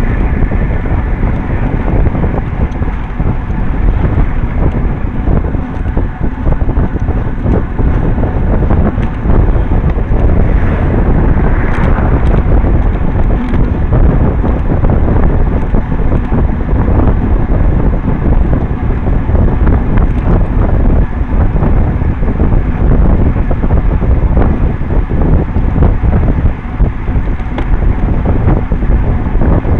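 Heavy wind buffeting on the microphone of a camera mounted on a moving road bicycle, a steady low rumble.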